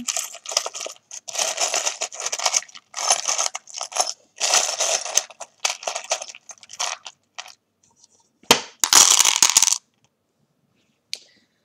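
A hand rummaging through a wooden box of small charms (plastic word beads, dice, metal rings, a coin charm), which clatter and rattle against one another. About eight and a half seconds in, a handful is cast onto the mat in one loud clatter lasting about a second.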